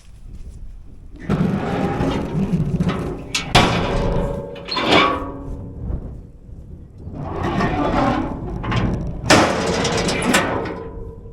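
Truck towing a gooseneck trailer loaded with a mini excavator, its engine noise swelling and fading four times, with knocks and rattles from the load.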